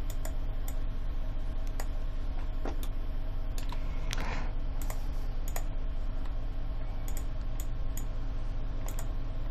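Scattered, uneven clicks of a computer keyboard and mouse, over a steady low hum.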